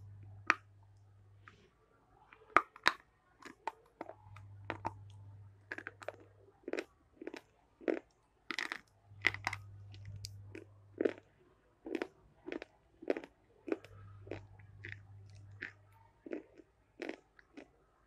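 Person chewing food close to the microphone, with sharp crunches coming about twice a second.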